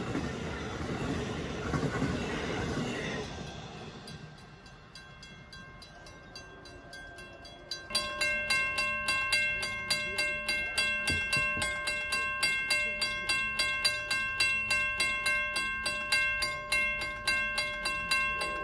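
Amtrak passenger cars rolling past on the rails, the wheel noise fading away over the first few seconds. After a few seconds of quiet, a railroad grade-crossing warning bell starts ringing suddenly, about three strikes a second, with the crossing gates down.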